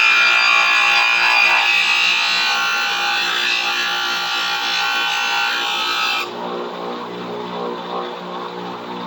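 Bench grinder running at speed while a steel screwdriver tip is held against the wheel, a loud hissing grind over the motor's steady hum. The grinding stops about six seconds in as the tool is lifted off, and the wheel keeps spinning.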